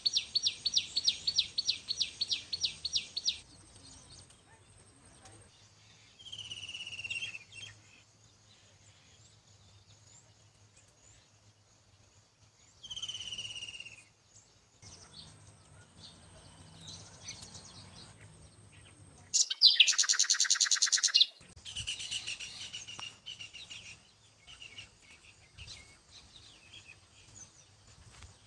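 Birds singing and calling: a rapid run of high chirps, about four to five a second, at the start, two falling whistled calls, and a loud buzzing trill about twenty seconds in, followed by more scattered chirps.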